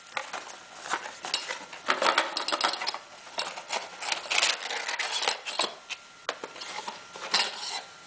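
Hands handling an open cardboard box and its packaging: irregular rubbing, scraping and rustling, with a few sharp clicks and knocks as parts are taken out.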